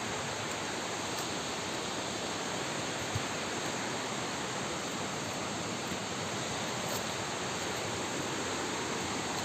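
Steady rushing of a waterfall, an even hiss of falling water with no change.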